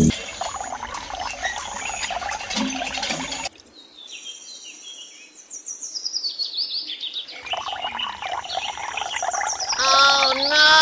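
Nature ambience of birds chirping and insects chirring, which thins out about a third of the way in to leave a run of high, quick bird chirps. Near the end comes a louder animal call with a wavering pitch.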